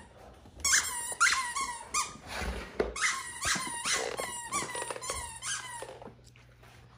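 Squeaky plush unicorn toy squeaked over and over as a Great Dane chomps on it, in quick runs of two to four squeaks.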